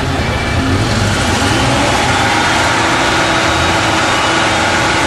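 IFA truck's diesel engine running under load as the trial truck works down into a dirt bank, blowing exhaust smoke; the level rises slightly about a second in and then holds steady.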